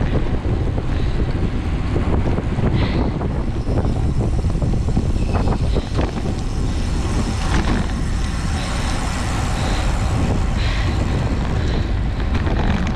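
Wind rushing over the microphone of a camera on a road bike ridden at race speed, a steady low rumble with a few faint short clicks and ticks.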